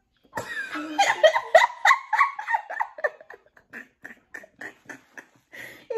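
People laughing hard, the laughter loud for the first few seconds and then trailing off into short, rhythmic bursts of about three a second.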